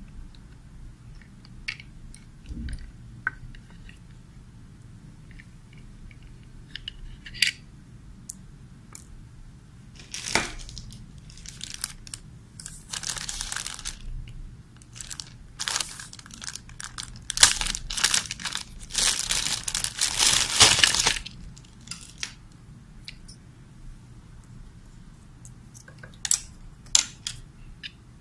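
Clear plastic packaging crinkling and rustling in bursts for about ten seconds as a coiled antenna cable is handled and taken out of it, with scattered small clicks and taps before and after.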